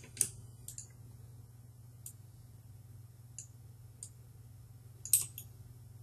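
Scattered faint clicks of a computer mouse and keyboard, a handful over several seconds, the loudest a little after five seconds in. A steady low hum runs underneath.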